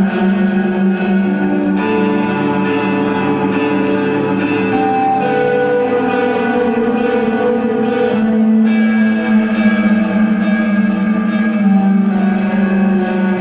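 Desert rock band playing live: echo-laden electric guitar with held, reverberating notes and chords that change every second or two.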